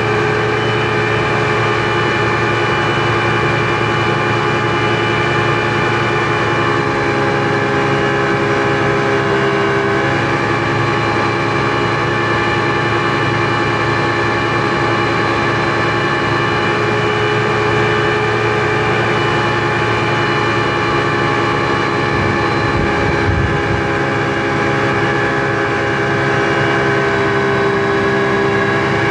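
Speedboat engine running steadily under way, heard from inside the boat's cabin: a constant drone with a whine of several steady pitches over it. A brief low rumble comes about three-quarters of the way through.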